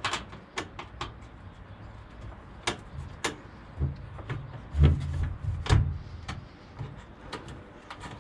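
Hand work on a car's engine lid mounting, with bolts being started by hand: scattered light metallic clicks and knocks, and a few duller thumps about halfway through.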